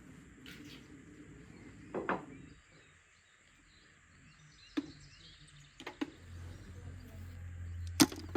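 A few separate sharp knocks and clicks, the loudest near the end, with a low steady hum coming in about two-thirds of the way through.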